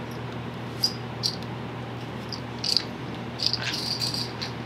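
Steel binder clips being squeezed open and pulled off the edge of a fabric-covered headliner board: a string of short, high clicks at uneven intervals, over a steady low hum.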